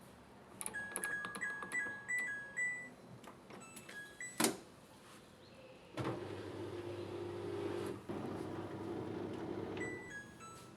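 Ramtons RW/147 washing machine's control panel beeping in quick melodic runs as its buttons are pressed, then a sharp click, then the machine humming steadily for about four seconds. A second short run of falling beeps comes near the end.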